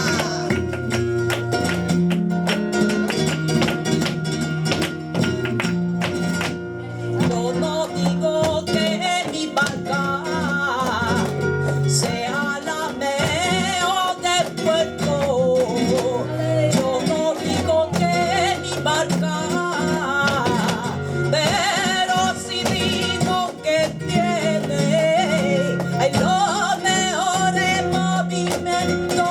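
Live flamenco fandango: flamenco guitar strumming with a steady stepping bass, joined about eight seconds in by cante singing in long, wavering, ornamented lines.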